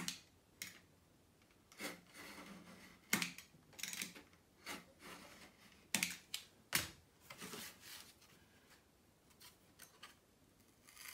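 Utility knife scoring thin 1.6 mm aeroply (birch aircraft plywood) along a steel rule: a series of short, light scraping strokes at irregular intervals, with a few small clicks of blade on rule. These are several light passes to cut through the sheet.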